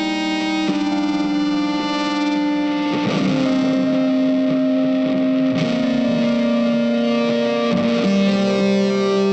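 Background music: a guitar with effects holding long sustained chords that change every two to three seconds.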